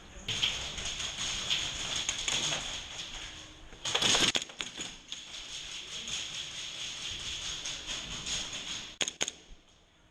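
Airsoft guns firing in rapid clicking strings, with a louder noisy burst about four seconds in and two sharp clicks near the end.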